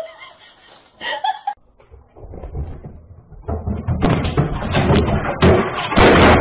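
A flat-screen TV knocked over by a cat, banging and clattering as it topples onto its stand, heard through a security camera's microphone. The crash is loudest about six seconds in.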